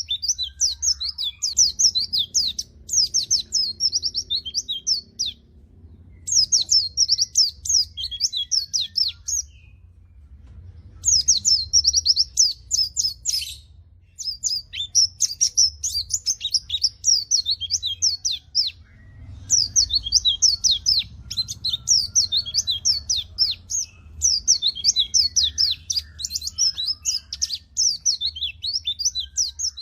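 White-eye (pleci) singing energetically: long phrases of rapid, high twittering chirps broken by short pauses of a second or two. This is the vigorous song used as a tutor and lure recording for pet white-eyes that sing too little. A faint low hum runs underneath.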